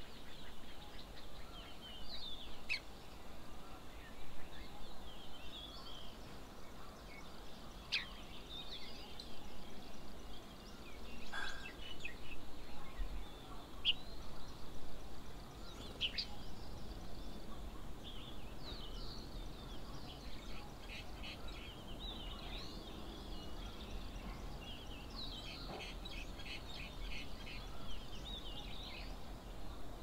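Outdoor birdsong with several birds chirping and calling. Bouts of rapid, repeated chattering notes come twice in the second half.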